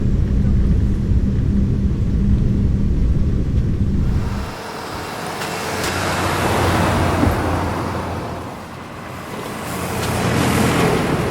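A steady low engine drone that cuts off about four seconds in, followed by road vehicles passing by: the tyre and engine noise swells and fades twice.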